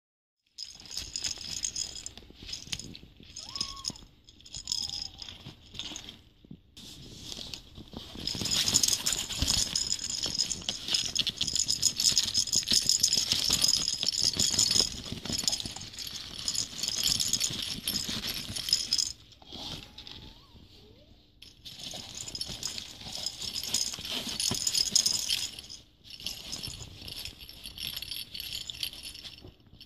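Small plastic cat-toy ball being batted and chased by a Persian kitten across a fabric playpen floor, rattling and jingling in bouts. The sound is loudest and near-continuous from about 8 to 19 seconds in, and drops away briefly around 20 and 26 seconds.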